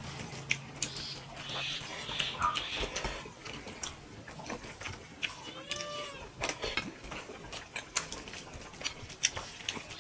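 Close-miked eating by hand: wet chewing and lip smacking of rice and prawn curry, a steady run of short smacks and clicks. About six seconds in there is a brief pitched hum-like vocal sound that rises and falls.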